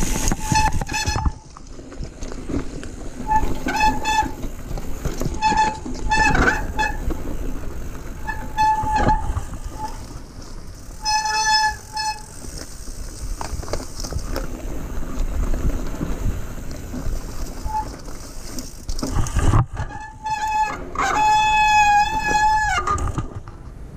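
Mountain bike brakes squealing in about a dozen short bursts as they are applied on a rough descent, a high, piercing tone with a ring of overtones, with one longer squeal of about two seconds near the end. The squeal marks brakes that are not working at their best. Under it, tyres and bike rattle over the rocky trail.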